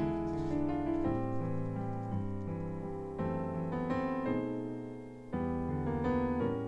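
Background solo piano music, with notes and chords changing every second or so.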